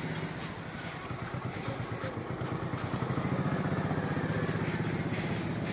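Small motorbike engine running close by, a steady fast pulse that grows louder about three seconds in.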